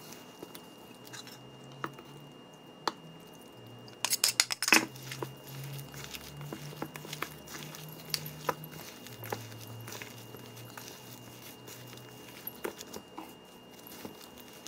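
A gloved hand kneading a sticky vegan sausage mixture of oats, corn flour and mashed beans in a stainless steel bowl: soft squishing with scattered small clicks, and a burst of sharper clicks about four seconds in.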